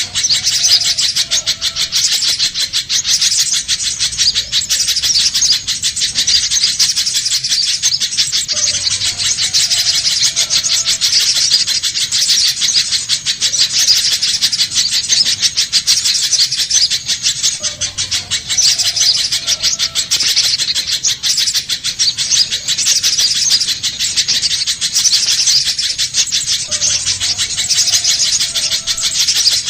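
Little spiderhunter calling without pause: a fast, high run of sharp chirps, from a bird-lure recording that repeats about every nine seconds.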